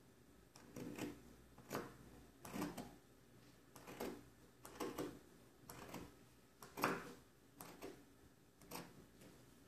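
Scissors snipping through the fabric of cotton boxer briefs, a faint sharp snip about once a second.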